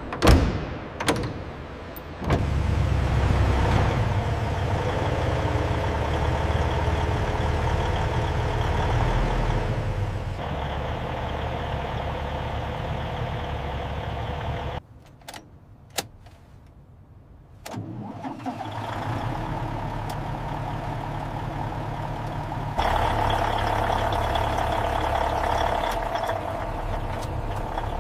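The Mack semi-truck's diesel engine starts after a couple of sharp knocks and runs steadily at idle. It cuts out for about three seconds midway, then runs again, louder for the last few seconds.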